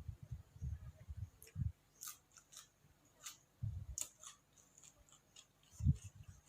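A person chewing food close to the microphone: irregular soft thuds of chewing, dense in the first second and a half and then sparser, with scattered sharp clicks.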